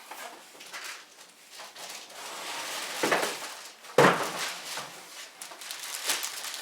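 Vacuum parts and packaging being handled: irregular rustling, with a sharp knock about four seconds in and a smaller one about a second earlier.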